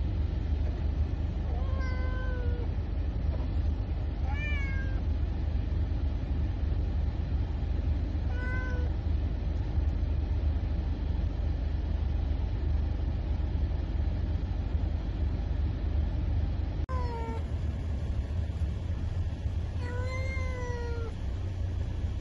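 Domestic cat meowing from inside a pet carrier, about five drawn-out meows a few seconds apart, each rising then falling in pitch, over the steady low rumble of a car.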